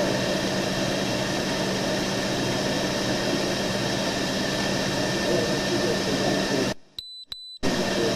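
Steady hiss and rumble on a police camera's audio track. It cuts out for under a second about seven seconds in, and two short, high beeps sound in the gap.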